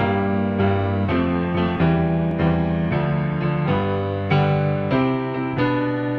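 Soft keyboard music, piano-like, with a new note or chord struck about every half second over held bass notes.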